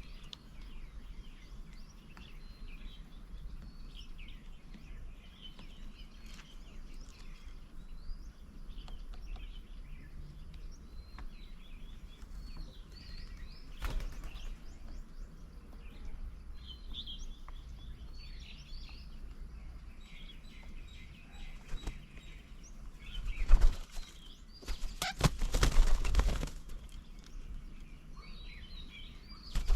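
Many small birds chirping and calling on and off in quick, overlapping short notes. Twice, about two thirds of the way through, a loud rushing noise briefly rises over the calls.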